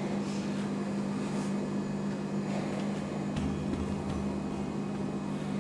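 A steady low mechanical hum, with a faint low rumble joining it about midway through.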